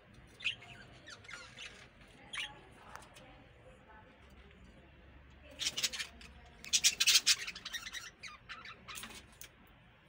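Budgerigars giving short chirps, then a louder flurry of harsh squawks in the second half.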